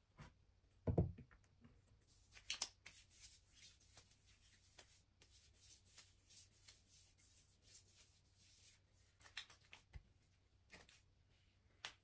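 Quiet handling sounds: a soft low thump about a second in, then scattered light rustling and clicks, with a sharp click near the end.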